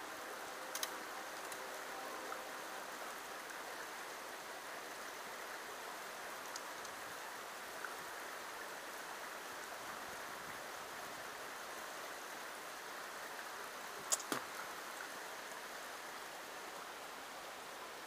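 Steady rush of a small creek running over rocks in a shallow riffle, broken by a few sharp clicks, the loudest pair late on.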